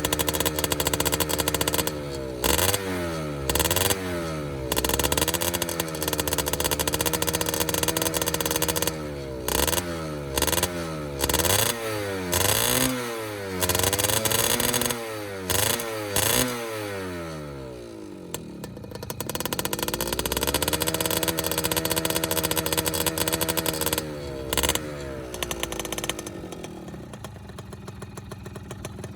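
Modified racing Yamaha F1ZR's two-stroke single-cylinder engine revved in repeated throttle blips, its pitch rising and falling again and again, with louder short surges at the top of the revs. After the middle it is held at a steady speed for a few seconds, then blipped once more and settles lower and quieter near the end.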